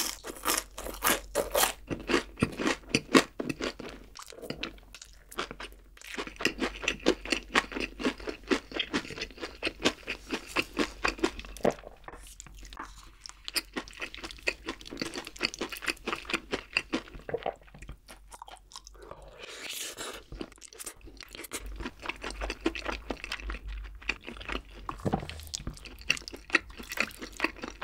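Close-miked chewing of breaded fried pork cutlet: rapid crisp crunches in bursts, with short pauses about 5, 12 and 18 seconds in.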